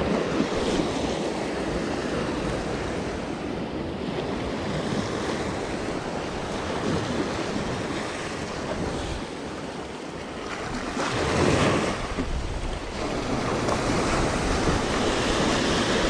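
Small sea waves breaking and washing up on a sandy beach, with wind buffeting the microphone; one wave surges louder about eleven seconds in.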